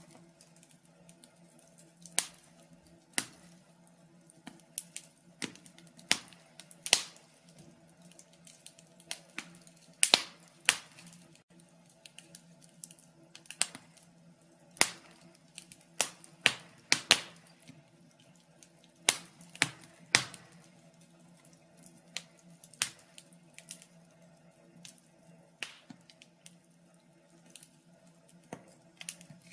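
Wood fire crackling in a fireplace: irregular sharp pops and snaps, some coming in quick clusters, over a faint steady low hum.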